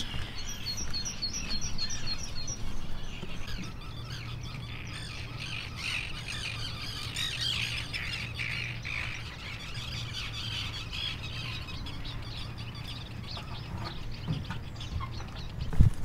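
Wild birds singing and calling, several at once: a quick run of about nine high, falling notes in the first couple of seconds, then a busy mix of calls from many birds.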